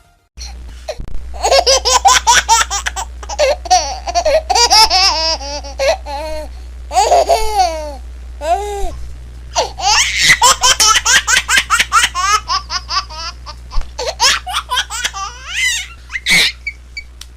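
A baby laughing hard in long runs of quick, breathy giggles and belly laughs, broken by short pauses for breath.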